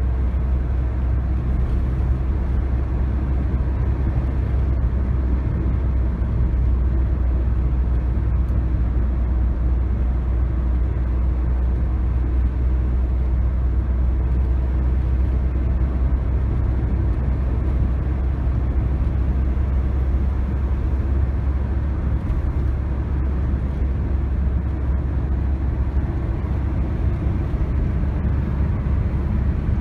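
Car driving steadily on an asphalt road, heard from inside the cabin: an even, deep rumble of engine and tyre noise.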